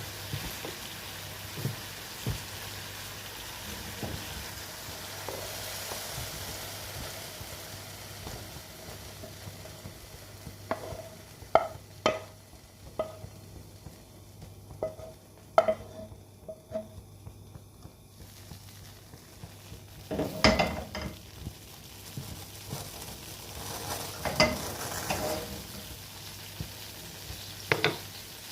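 Food frying and sizzling in a pan, with a utensil stirring and knocking against the pan; a run of ringing knocks comes about halfway through, and more follow near the end.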